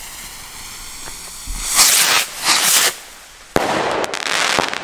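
Small skyrockets going off: two loud whooshing rushes of hiss close together about two seconds in, then a sharp bang about three and a half seconds in followed by about a second of rough hissing noise.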